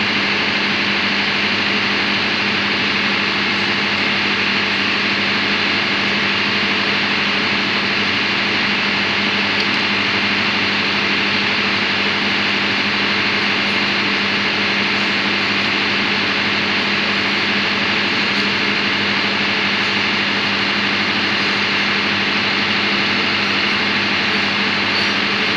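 Diesel engine running at a steady speed: a constant, unchanging drone with a strong low hum and a hiss above it.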